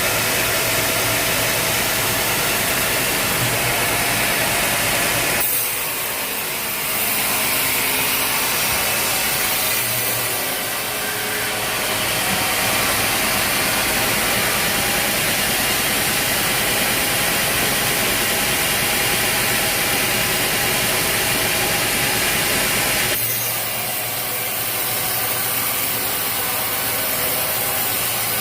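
Engine-driven sawmill running and sawing through a log, a steady mechanical noise over a low engine hum; the sound changes abruptly about five seconds in and again near the end.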